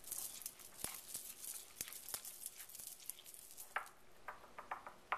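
A utensil stirring melted butter with sliced green onions and poppy seeds in a small bowl: faint, quick scrapes and clicks against the bowl, with a few clearer clinks near the end.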